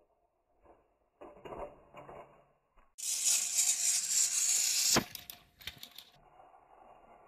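Battery-powered plastic toy trains on plastic track: light plastic clatter, then about three seconds in a loud, high whir of the trains' small motors and wheels for about two seconds. It ends in a sharp plastic clack as they collide, followed by a few smaller clicks.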